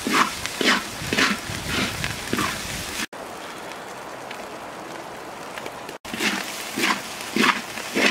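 Wooden spatula scraping and tossing fried rice in a large iron wok, in strokes about two a second. A steady sizzling hiss fills the middle stretch while the stirring stops.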